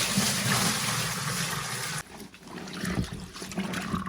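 Water rushing into a top-load washing machine tub, an even splashing noise that cuts off abruptly about halfway through, followed by quieter, irregular knocks and rustles.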